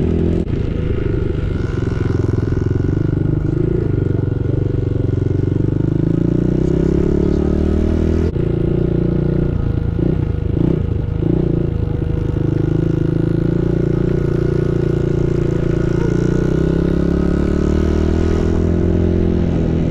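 Small dirt bike engine running steadily close by, its pitch rising and falling as the throttle opens and closes, with a brief wavering change in pitch about ten seconds in.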